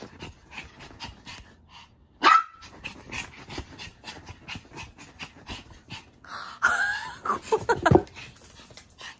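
Maltese dog giving one short, sharp bark about two seconds in, amid quick light thumps of its paws racing over a quilted bed; near the end it lets out a few wavering, howl-like cries.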